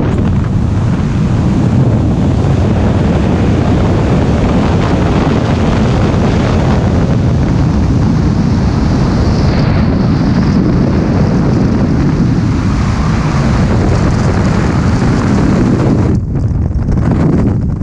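Freefall wind rushing over the camera's microphone, a loud, steady blast of noise that flutters briefly near the end.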